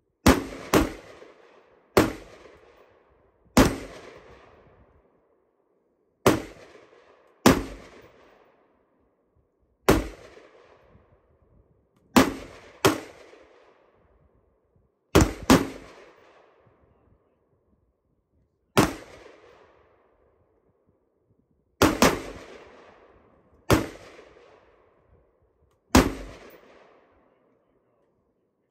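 IWI Tavor X95 short-barrelled rifle firing about fifteen single shots at an uneven pace, from about half a second to three seconds apart. Each shot is a sharp crack followed by a short echo.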